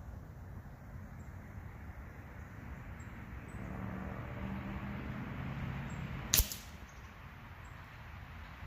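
A single sharp crack about two-thirds of the way in: a shot from an HW 97 underlever spring-piston air rifle at 27 yards, the pellet knocking the cotton head off a Q-tip target.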